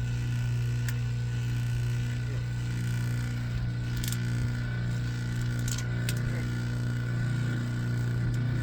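A steady low mechanical hum, with a few faint light clicks scattered through it.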